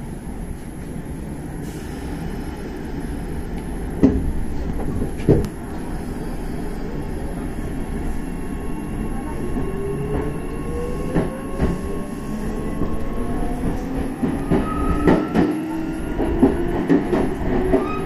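Kintetsu 6400 series electric train with a SiC VVVF inverter pulling away from a station, its rumble joined about halfway through by a whine of several tones rising steadily in pitch as it gathers speed. Two sharp knocks sound about four and five seconds in.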